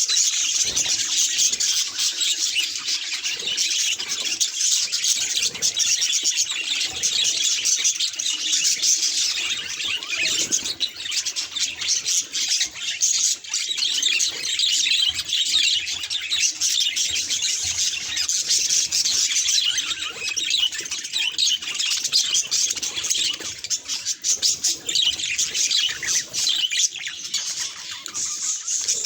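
Budgerigars chirping and chattering without a break, a dense stream of rapid high-pitched calls.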